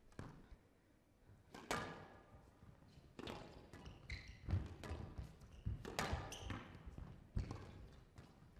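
A squash rally on a glass-walled court: the ball gives a string of sharp cracks at uneven intervals as it is struck by the rackets and hits the walls and floor.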